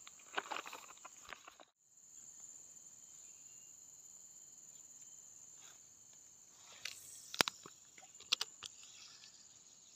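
Steady high-pitched drone of insects in the surrounding vegetation, with a few sharp clicks late on.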